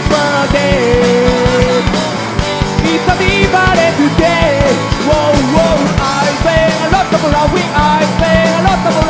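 Live rock band playing a song: a singer's lead vocal over electric guitar, bass and a steady drum beat.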